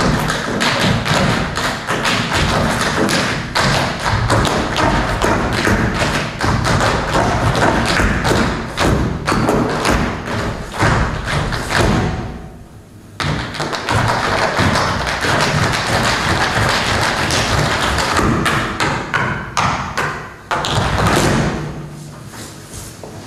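Dancers' shoes stamping and tapping on a stage floor in quick rhythmic footwork over music. The footwork breaks off for about a second around the middle, then starts again abruptly, and grows quieter near the end.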